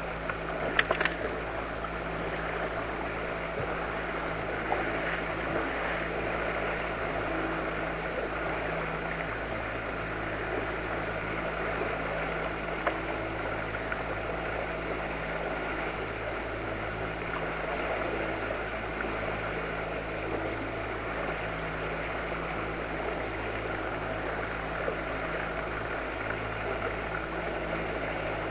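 Outboard motor of an inflatable boat running steadily at trolling speed, a constant drone with water rushing past the hull. A few sharp clicks sound about a second in.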